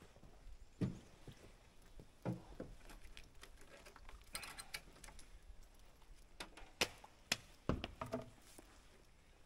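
Faint scattered knocks and clicks, with a short rattle about four seconds in and the sharpest knocks near the end.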